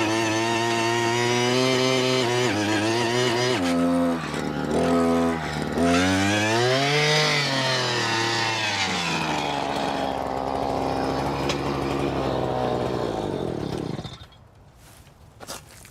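Small gasoline engine on a handheld power tool running under load. It bogs and labours a few seconds in, revs back up, then runs on steadily and shuts off near the end.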